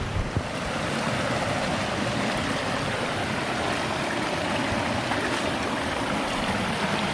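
Rushing water of a rocky rainforest stream: a steady, even rush.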